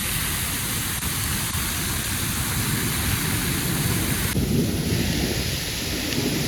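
Heavy rain pouring steadily, with a low rumble underneath. The sound shifts abruptly about four seconds in.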